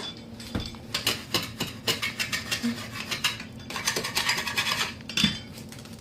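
Kitchen cleanup: small hard items clinking and knocking, with a stretch of scraping or rubbing about four seconds in.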